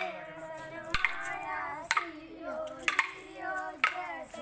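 Wooden sticks clacking together about once a second in a danda naach stick dance, with boys singing the dance song throughout.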